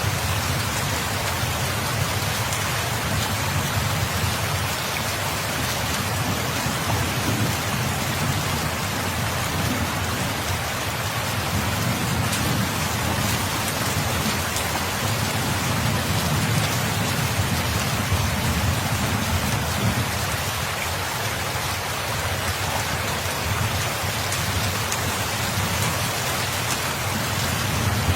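Steady rain falling in an even hiss, with low rumbles of distant thunder swelling and fading a few times.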